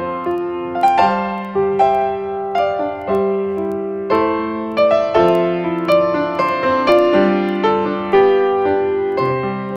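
Background music: a slow, gentle piano piece, single notes and chords struck about once or twice a second and left to ring.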